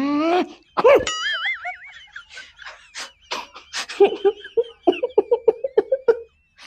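Cartoon sound-effect track: a short vocal exclamation, then a warbling wobbly tone about a second in, a scatter of sharp clicks, and from about four seconds in rapid repeated laughter.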